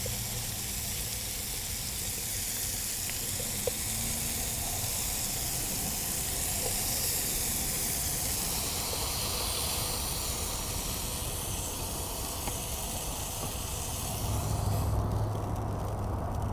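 Shrimp and steak sizzling in a frying pan over a Coleman camp stove, with a few light clicks of tongs and a wooden spatula as the pieces are lifted out. The sizzle thins out about a second before the end, when the pan is emptied, and a brief low rumble comes in.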